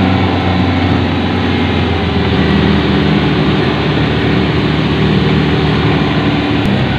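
Offroad jeep's engine running steadily at low revs, heard close up from the cockpit as the jeep crawls along a dirt track.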